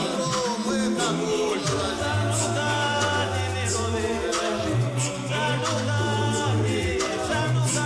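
A man singing into a microphone over backing music, with long held bass notes and a steady beat.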